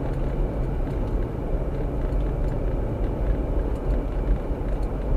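Jeep driving: a steady low rumble of engine and road noise.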